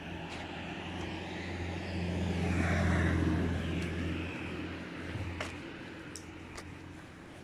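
A passing motor vehicle, its noise swelling to a peak about three seconds in and then fading away.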